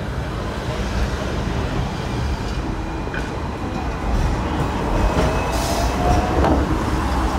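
Hong Kong double-decker electric tram running along its track: a steady rumble with a faint, slightly rising whine and a couple of sharp knocks.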